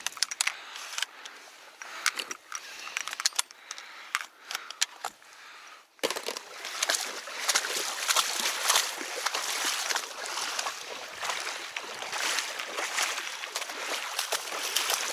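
A few sharp knocks and clicks in an inflatable boat, then, after a cut about six seconds in, steady sloshing and splashing of steps wading through shallow floodwater and wet grass.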